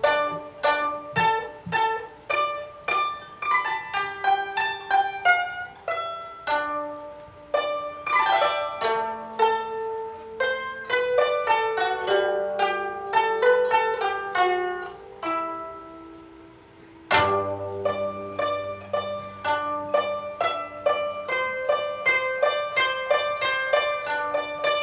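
Guzheng played solo: quick runs of plucked notes, some bent in pitch, with a sweeping glissando about eight seconds in. A deep low note is struck with another sweep about seventeen seconds in.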